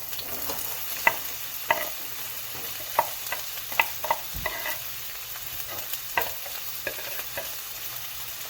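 Chopped onions sizzling steadily in hot olive oil in a frying pan, with a utensil scraping and tapping against the pan a dozen or so times as they are spread out.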